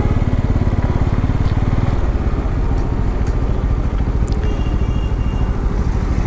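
Bajaj Pulsar N250's single-cylinder engine running at low revs with steady, even exhaust pulses as the motorcycle rolls slowly to a stop.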